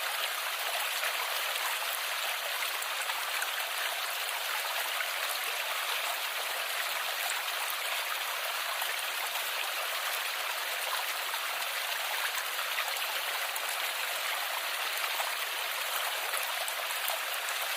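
Steady rush of running water, an even hiss with no break.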